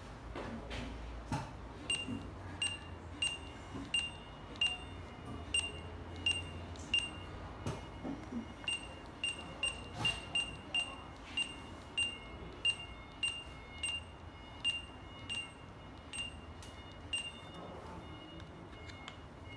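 HC-4000 Android data terminal beeping as its built-in Honeywell 1D/2D scanner reads barcode after barcode: a long run of short, same-pitched beeps, roughly two a second and quicker for a stretch in the middle, each beep the good-read signal of a decoded code. Faint clicks fall between the beeps.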